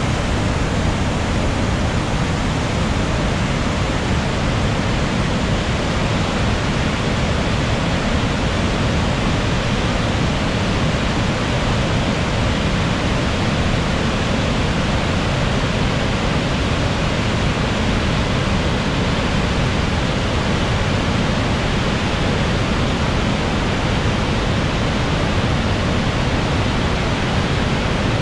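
Augrabies Falls on the Orange River in flood, a huge volume of water pouring into the gorge with a loud, steady rush that does not let up.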